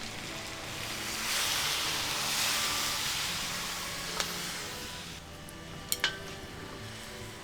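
Food sizzling in a hot pan, swelling to a loud hiss about a second in and fading away over the next few seconds, followed by a few sharp clicks of a utensil against the pan.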